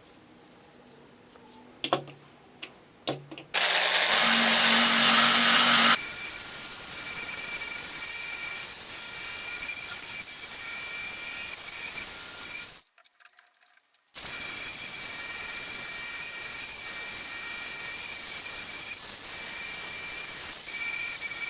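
A few clicks, then an electric power tool starts loud with a low hum and runs on steadily, working on material in the manner of drilling or sanding. It cuts out for about a second and a half in the middle, then resumes.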